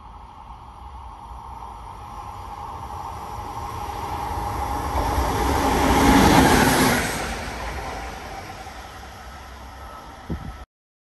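InRail E191.001, a Siemens Vectron electric locomotive running on its own, passing through: its rumble and rail noise build steadily, are loudest about six to seven seconds in as it goes by, then fade. The sound cuts off suddenly shortly before the end.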